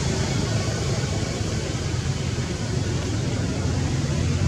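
Steady outdoor background noise: an even low rumble under a hiss, with no distinct events.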